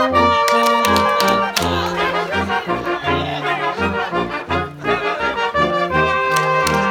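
Live brass band playing a polka: tuba bass notes alternating in a steady oom-pah beat under trumpets, saxophones and clarinet, with held high horn notes near the start and again near the end.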